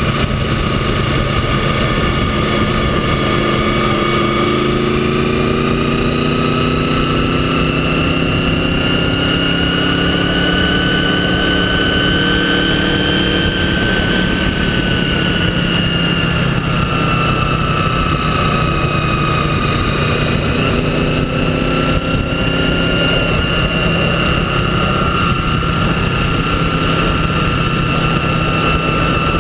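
Motorcycle engine running at road speed under a steady rush of wind and road noise. The engine note climbs gradually over several seconds around the middle, then eases back.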